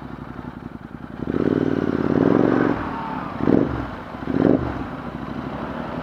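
Royal Enfield Interceptor 650's parallel-twin engine through a Red Rooster slip-on exhaust. It rumbles low for about a second, then runs louder as it is revved, with two short throttle blips in the middle.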